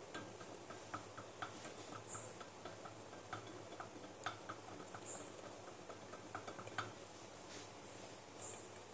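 A thin rod stirring cloudy potassium hydroxide solution in a glass tumbler, ticking lightly and irregularly against the glass, with a few louder taps; the ticking stops shortly before the rod is lifted out. A low steady hum runs underneath.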